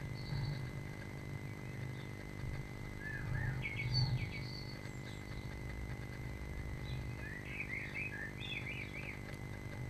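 Small birds chirping in short bursts of quick calls, about half a second in, again around three to four seconds in, and a busier run near the end, heard through a nest-box camera's microphone over its steady electrical hum and a low rumble.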